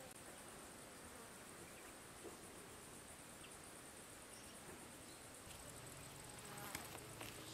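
Faint, steady high-pitched trilling of insects in the garden vegetation, with a couple of soft clicks near the end.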